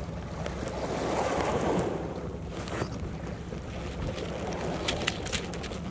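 Wind buffeting the microphone: a steady low rumble that swells about a second in, with a few short handling clicks near the end.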